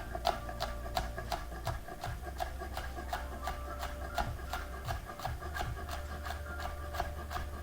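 Kitchen knife chopping a serrano pepper on a cutting board, a steady rhythm of about three chops a second.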